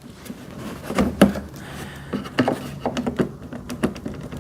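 Parts of a wood chipper's stand being handled and fitted together: a series of light knocks and clicks, the loudest about a second in.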